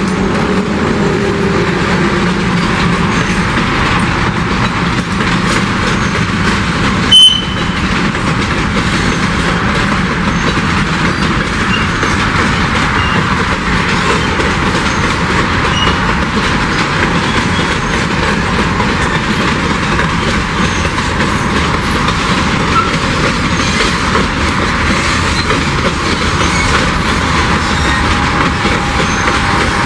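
Empty boxcars of a long freight train rolling past, their wheels making a steady, loud running noise on the rails. About seven seconds in comes one sharp bang.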